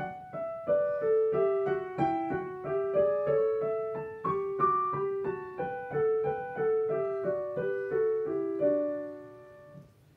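Roland digital piano played in an even rhythm of short chords under a melody, closing on a last chord about nine seconds in that rings and dies away: the end of the piece.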